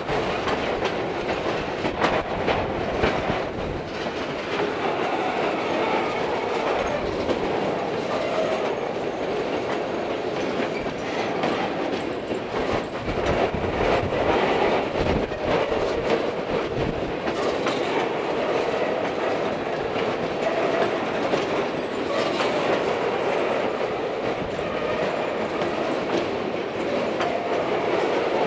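Covered hopper cars of a freight train rolling past, steel wheels clicking over rail joints over a steady rolling noise.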